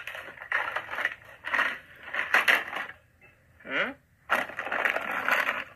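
Crinkling and rustling of a plastic cookie package being handled, in irregular noisy bursts, with a brief short vocal sound about three and a half seconds in.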